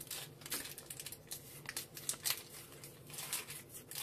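Hands handling a foil Pokémon booster pack and its cards: an irregular run of crinkles and rustles as the wrapper is worked and the cards are pulled out.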